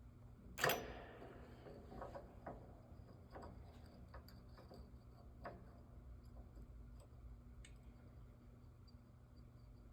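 Metal parts and hand tools being handled on a strut in a spring compressor: one sharp clank about half a second in, then scattered light clicks and taps, over a steady low shop hum.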